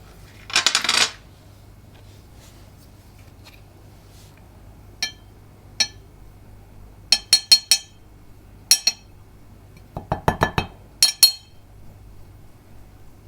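Small hard objects clinking and clicking: a brief rattle about half a second in, then scattered ringing clicks that come singly and in quick clusters of three or four.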